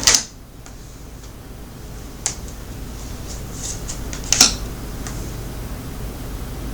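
Tarot cards being handled and laid on the table: a few sharp snaps and taps, the loudest right at the start and about four seconds in, with a smaller one about two seconds in, over a steady low hum.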